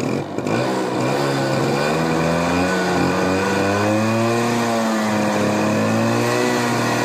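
Bajaj Chetak scooter's single-cylinder engine running, its speed rising gently to a peak midway and easing back.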